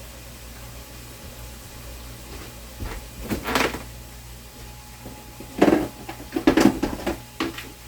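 Kitchen handling noises: a short clatter about three seconds in, then a quick run of knocks and clatters a couple of seconds later.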